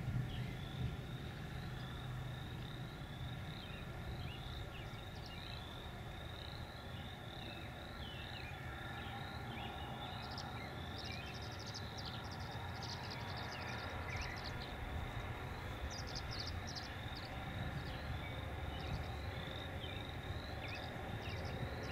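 Outdoor field ambience: a steady low rumble under a continuous run of rapidly repeated high chirps and trills. Short, higher chirps join in from about ten seconds in.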